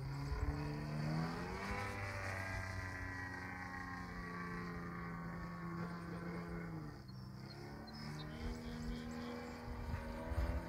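DA-70 twin-cylinder two-stroke gas engine of a 120-inch Turbo Bushmaster RC plane flying overhead, running through a canister muffler. Its pitch rises about a second in, holds steady, drops around seven seconds in, then climbs again near the end.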